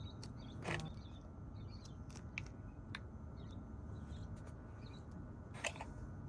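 Quiet steady low hum with a few soft clicks and taps, the clearest a little under a second in and again near the end, and faint high chirps in the background.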